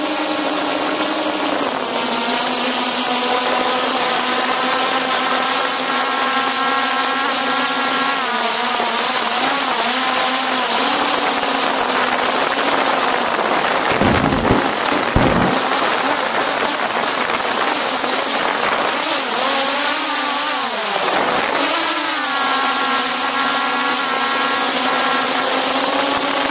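DJI Mavic 2 Pro drone's propellers whining in flight, heard close up from a camera mounted on the drone. The steady hum dips and rises in pitch as the motors change speed, about a third of the way in and again about two-thirds through. Brief low rumbles come about halfway through.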